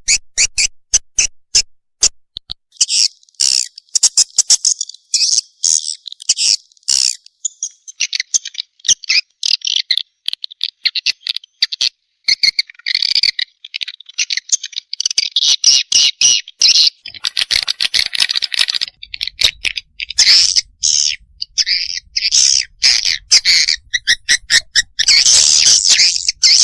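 Swiftlet lure call (suara panggil walet) played to draw swiftlets into a swiftlet house: dense, high twittering chirps cut by many rapid sharp clicks.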